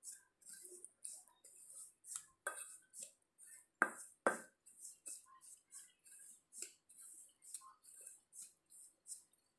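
A spoon stirring rice flour and ghee in a stainless steel bowl: repeated soft scraping strokes, about three a second, with two sharper clinks of the spoon against the bowl about four seconds in.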